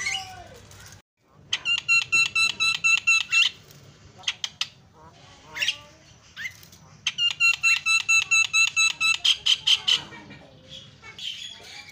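Javan myna singing: two long runs of rapid, evenly repeated notes, about seven a second, with short whistles and squawky calls between them.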